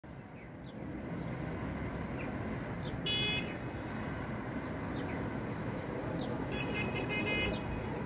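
Steady engine noise of a jet aircraft flying overhead. Short high-pitched tones sound about three seconds in and again several times near the end, with a few faint chirps.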